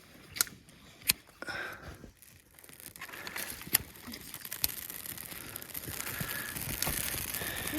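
Dry wood snapping in a few sharp, scattered cracks, over a soft rustling hiss that grows from about three seconds in.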